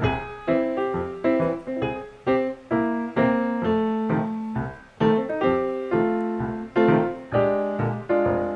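Background piano music: a melody of single struck notes and chords, each ringing and fading before the next, a few notes a second.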